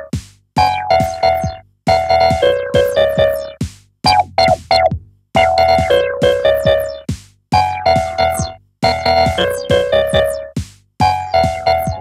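Neuzeit WARP wavetable-and-additive Eurorack oscillator playing a repeating sequence of short plucked synth notes, in groups that each die away quickly, with a falling low tone at the start of each group. The tone of the notes shifts from group to group as a knob on the module is turned.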